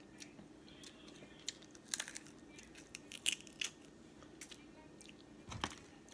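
Seafood shells from a crab and crawfish boil cracking and tearing apart: a scattered series of sharp cracks and snaps, with a duller knock near the end.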